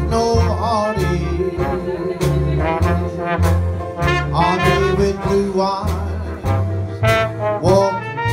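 Traditional New Orleans jazz band playing live: horn lines over a steady bass and drum beat.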